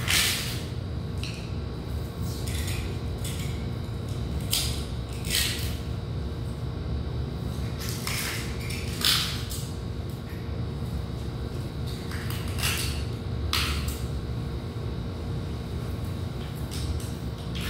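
Small plastic tile spacers or levelling clips clicking and clinking against glazed ceramic floor tiles as they are handled along the tile joints, about a dozen light clicks at irregular intervals, over a steady low hum.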